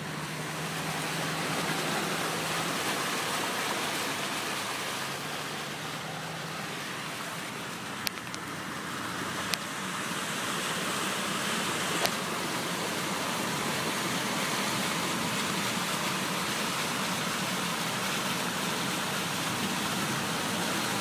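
Car driving along a flooded road: a steady rush of water and tyre noise, with a faint engine hum in the first few seconds. A few brief sharp clicks come near the middle.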